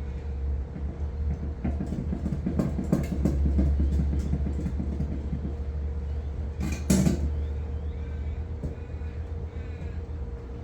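An object being shifted and scraped across a concrete floor for a few seconds, then a single loud clank about seven seconds in, over a steady low hum.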